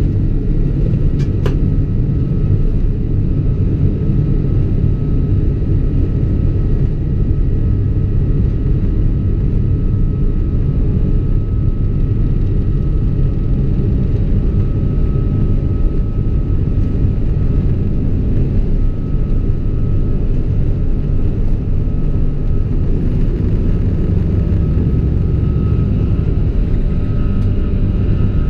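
Steady cabin noise of a Boeing 777-200ER heard from a window seat: a loud, even rumble of the engines and airflow with a faint steady whine on top. There is a single short click about a second and a half in.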